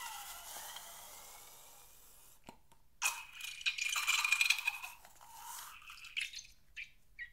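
A liquid-filled rubber balloon being squeezed, its contents squirting and sputtering out through the stretched neck with a high, steady squeal. One burst fades over the first two seconds, and a second, louder one runs from about three to five seconds in, followed by a few small squelches as the nearly empty balloon is pressed.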